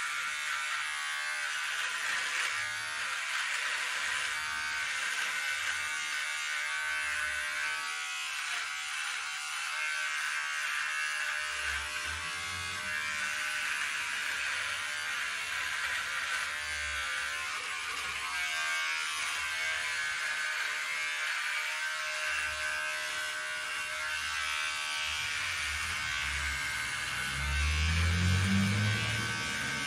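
Small handheld electric shaver buzzing steadily as it is run over several days' stubble on the chin and neck, its pitch and loudness shifting with the strokes and growing louder near the end as it presses along the neck.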